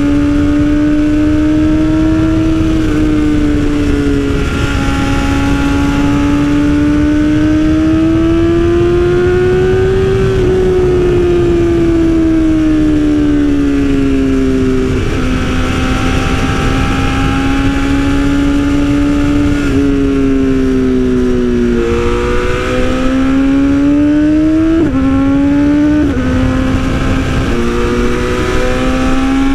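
BMW S1000RR inline-four sport bike with an Austin Racing aftermarket exhaust, running on the road. Its pitch rises and falls with the throttle and jumps sharply at several gear changes, over a steady rush of wind noise.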